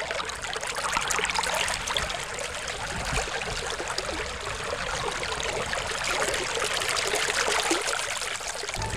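Running water, a steady, even rush with no tune in it.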